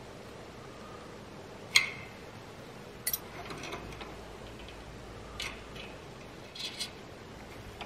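Sharp metallic clicks and taps from a small wrench working the nut of an exhaust gas temperature probe's compression fitting on the exhaust pipe. One loud click comes about two seconds in, followed by a few fainter, spaced-out clicks.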